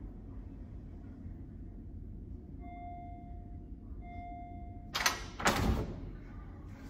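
An electric door buzzer sounds twice, each buzz about a second long, then a door is unlatched and pulled open with a couple of loud clacks and thuds.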